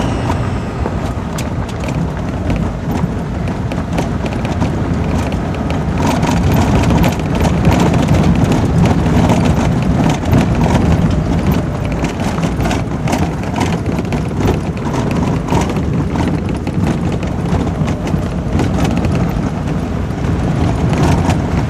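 A car driving on a loose gravel dirt track, heard from inside the cabin: a steady rumble of engine and tyres on the stones, with many small clicks and knocks throughout. It gets a little louder about six seconds in.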